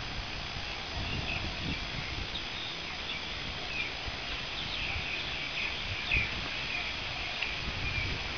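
Birds chirping: short, high calls repeating irregularly, coming thicker after about four seconds, over a steady low rumble.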